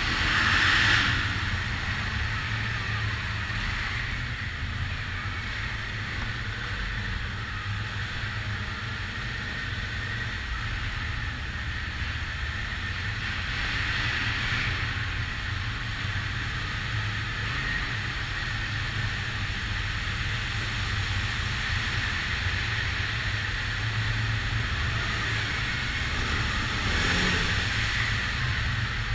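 ATV engine running steadily at low speed with a low rumble, under a hiss of tyres on wet ground that swells about a second in, halfway through and near the end.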